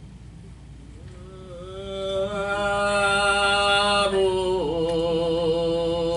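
A singer's voice comes in about a second in and holds long drawn-out notes as a song begins, stepping down in pitch a little after four seconds; before that only a low steady hum is heard.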